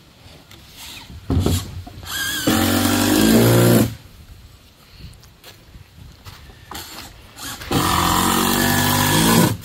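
Power drill driving deck screws into mahogany floor planks: two runs of about two seconds each, the motor's pitch shifting as the screw bites, with a sharp knock just before the first.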